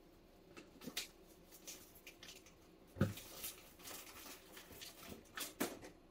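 Trays and frozen packages being slid in and shifted around inside a refrigerator's freezer compartment. There are scattered knocks and rustles, with the loudest thump about three seconds in.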